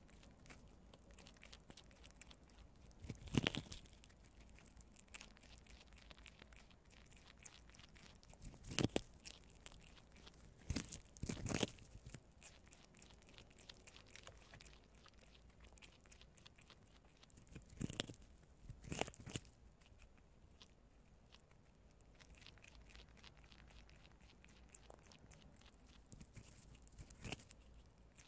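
Two prairie dogs gnawing and chewing kernels off a cob of white corn: a steady patter of small crunching clicks, with louder crunches every few seconds.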